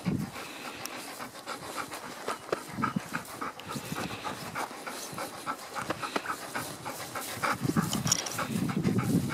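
A black gundog panting quickly and rhythmically.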